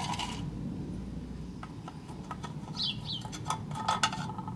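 Light metal clinks and taps of a tool against the lead-melting pot, with a short ringing tone near the end.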